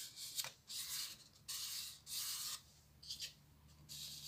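Paper and card rubbing and rustling as a white card sleeve is handled and slid against a small wooden compartment box, in several short scraping strokes.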